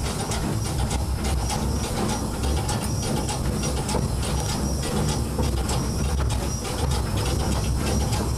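Small steam tank locomotive running, heard from its cab: a steady rumble with frequent short clicks.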